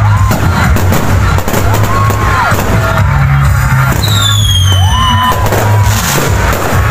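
Fireworks bursting under loud music with a heavy bass line. About four seconds in, a firework whistle sounds for just over a second, gliding down in pitch.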